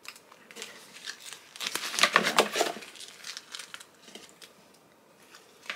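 Paper packaging crinkling and rustling as it is handled, with a denser, louder burst of crackling from about one and a half to three seconds in, then a few faint scattered rustles.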